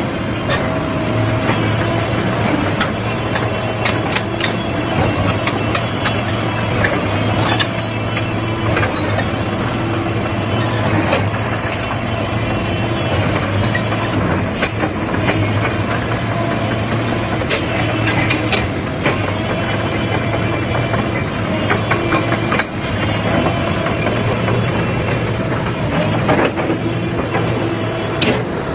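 Sany SY215C hydraulic excavator's diesel engine running steadily, with many short sharp knocks scattered throughout.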